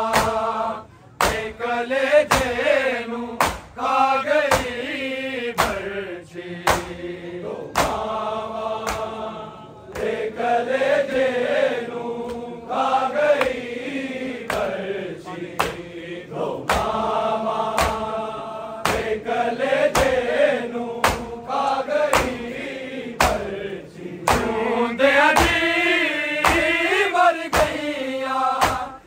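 Men's voices chanting a Punjabi noha lament in melodic phrases, over a regular sharp beat about every two-thirds of a second.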